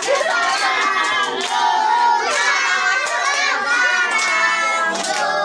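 A roomful of young children shouting and cheering all at once, with some hand clapping.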